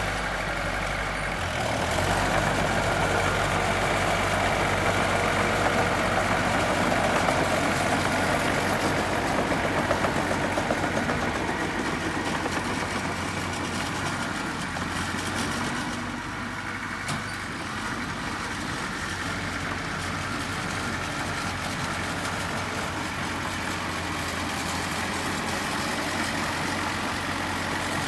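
Engine of heavy earthmoving equipment running steadily, a little louder for the first ten seconds or so and then settling slightly lower.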